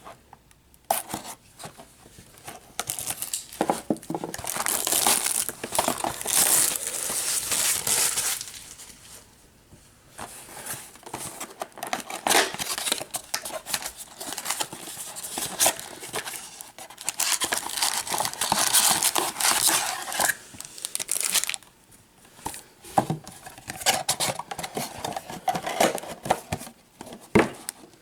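Plastic wrapping and cardboard packaging of a trading-card blaster box being torn and crumpled as the box is unwrapped and opened, in long stretches of crinkling with short pauses.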